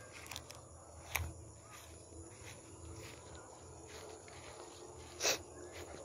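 Footsteps through grass under a steady high insect drone, with two sharp clicks, the louder one near the end.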